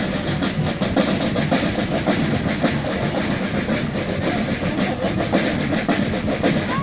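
Parade marching-band drums beating a steady cadence, with a continuous background din.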